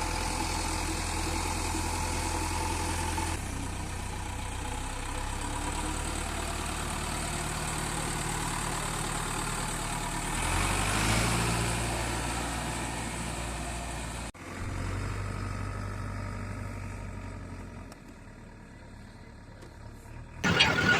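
Diesel engines of a JCB 3DX backhoe loader and farm tractors running steadily. The engine speeds up briefly about halfway through. The sound changes abruptly about two-thirds in, drops lower near the end, and a loud clatter starts just before the end.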